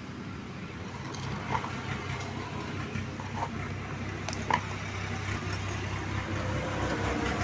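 A steady low engine hum, slowly getting louder, with a few faint clicks and taps of chainsaw parts being handled.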